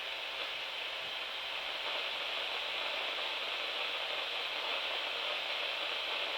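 Steady, even hiss of radio static from a weather radio receiver: the weather radio transmitter has dropped its signal.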